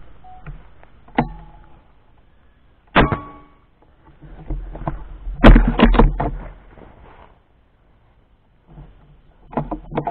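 Handling noise from a FOX GR1600 air rifle with a camera mounted on it. A sharp metallic click with a short ring comes about three seconds in. A cluster of loud knocks and rubbing follows around the middle, with more knocks near the end.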